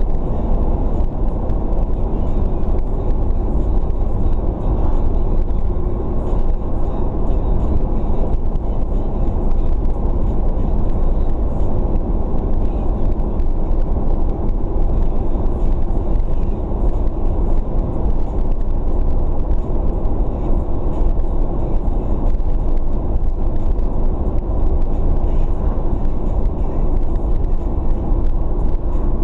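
Car driving at a steady speed, heard from inside the cabin: a steady low rumble of engine and tyres on the road.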